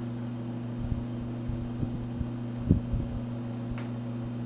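General Electric 20-inch box fan, model F11W22, running on low speed: its motor gives a steady electrical buzz, as these fans' motors tend to. A few soft low thumps sound over it, the strongest about two and a half seconds in.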